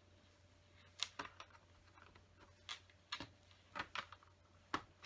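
LEGO bricks clicking as they are handled and pressed together: a handful of short, sharp plastic clicks at irregular intervals.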